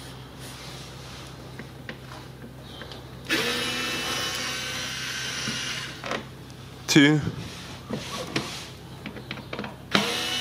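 Cordless electric screwdriver with a Torx 20 bit running steadily for about three seconds as it backs a screw out of a car's plastic underbody cover, then starting again near the end, with light handling clicks in between.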